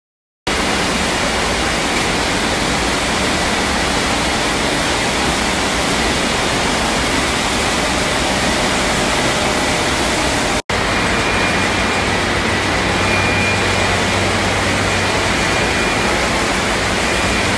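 Loud, even noise of machinery running on a long-life milk carton packaging and conveyor line, with faint high whines above it. It starts half a second in and drops out for an instant about two-thirds of the way through.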